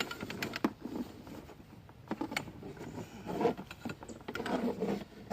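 Handling noise from seat parts being worked apart: scattered light clicks and knocks with stretches of rustling and scraping as the seat part is slid off.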